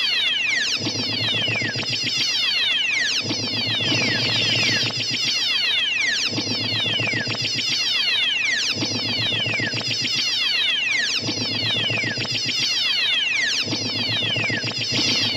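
Sci-fi laser-gun sound effect: rapid volleys of zaps, each a quick tone falling in pitch, firing in clusters about once a second over a pulsing low hum.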